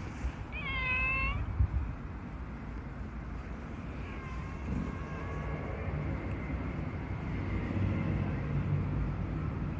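A calico cat meows once, clearly, about a second in, then gives fainter, longer mews in the middle.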